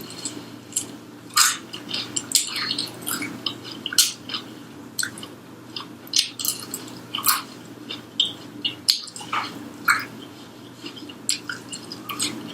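Close-up chewing of crispy fried chicken: irregular crunches and mouth clicks.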